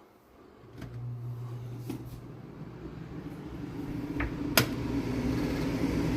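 Hermitlux 600 CFM built-in range hood blower switched on about a second in and running with a steady hum that grows louder. A sharp click comes about four and a half seconds in.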